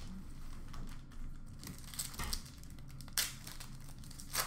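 Foil hockey-card pack wrappers crinkling as the packs are handled and opened, in several short rustles with the sharpest about three seconds in.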